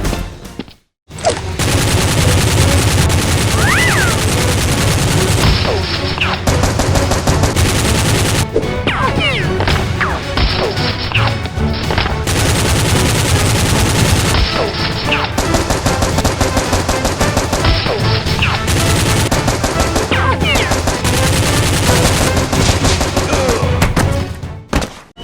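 Rapid, sustained machine-gun fire sound effects of the kind edited into action films, with music underneath. There is a brief gap about a second in.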